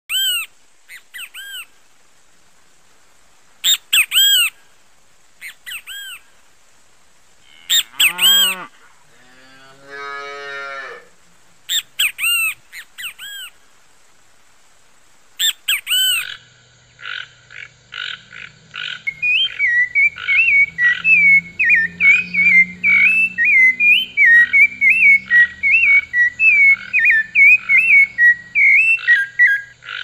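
Nature-sound recording of wild birds: separate loud calls, each a few rising-and-falling whistled notes, repeating every few seconds, with a falling call and a short rattling croak about a third of the way in. About halfway, a fast pulsing animal chorus starts up with a low drone beneath it, and a bird sings a warbling song over it to the end.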